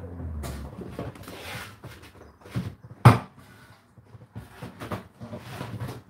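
Household knocks and clatter, with one sharp knock about three seconds in, the loudest sound here.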